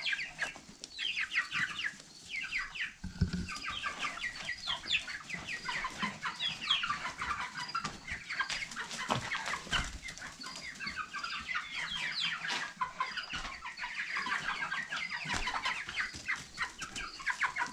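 A flock of chickens clucking without pause, many short calls overlapping, with a few low thumps about three and ten seconds in.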